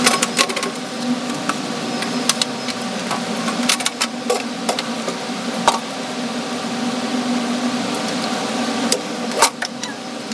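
A steady machine hum runs throughout, with scattered knocks and clatters as things are picked up and moved about; the sharpest knocks come at the start and about nine seconds in.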